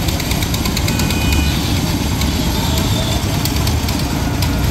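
Engine of a dragon-themed kiddie train ride running steadily, with a rapid clicking clatter over a low rumble as the cars run on the track.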